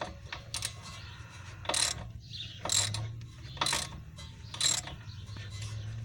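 Hand ratchet wrench clicking in short, regular strokes, about one a second, as a tight bolt is worked out of the car's rear suspension.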